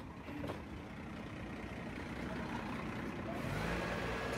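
Garbage truck's diesel engine running, growing louder about three and a half seconds in.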